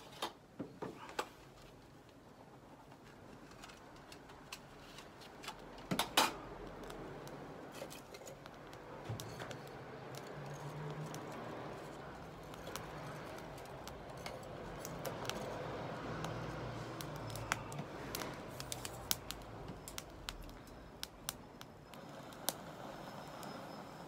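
Split kindling catching fire in a steel fire pit: crackling and snapping, with a hiss of flame that rises after about nine seconds and frequent sharp pops near the end.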